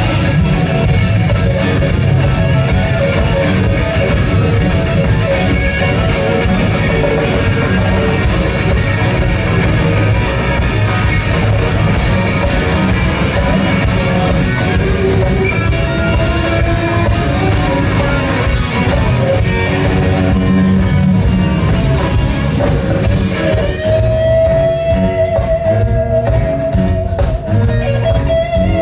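Live rock band jamming, led by electric guitars on Les Paul-style guitars over bass and drums. About 24 s in, a lead guitar holds one long note that carries on to the end.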